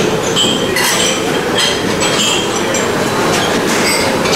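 Busy ship's galley: steady loud machinery and ventilation noise with frequent short clinks of plates and metal utensils.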